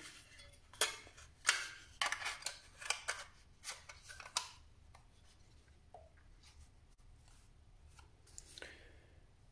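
Hands fitting a 2.5-inch SSD into a laptop's drive mounting frame: a quick run of clicks and short scrapes of small plastic and metal parts for the first few seconds, then a few lighter clicks and one more scrape near the end.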